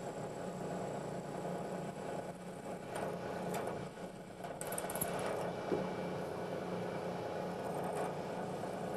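Milling machine spindle running with a steady hum while a drill in its quill cuts into metal; brief higher-pitched cutting sounds come and go about three seconds in, around five seconds, and near the end.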